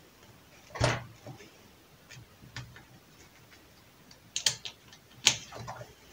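Handling sounds at a bench vise: scattered clicks and knocks of a 3D-printed plastic part and small hand tools. One sharper knock comes about a second in, and two more come after about four and a half seconds.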